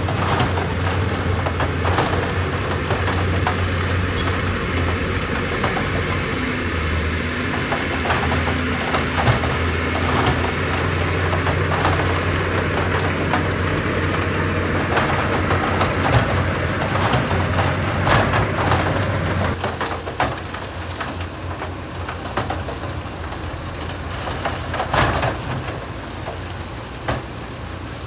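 Heavy diesel earthmoving machine running, a steady low engine drone with scattered metal clanks and knocks. The drone eases about two-thirds of the way through, and a louder clank comes near the end.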